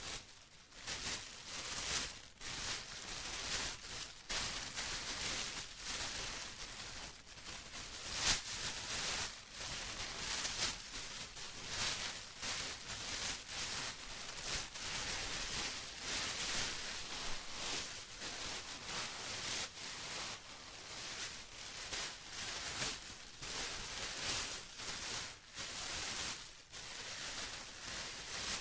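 Plastic being crinkled and rustled by hand, in an irregular run of crisp crackles with short lulls between them.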